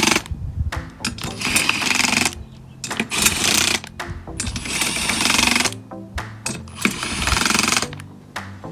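Impact wrench hammering in a series of short bursts, with brief pauses between them, as it runs down the bolts of a beadlock wheel's outer ring one after another in a cross pattern.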